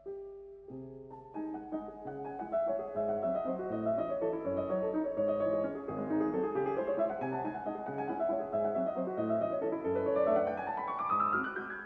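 Background piano music: a melody over low bass notes, ending in a quick rising run of notes near the end.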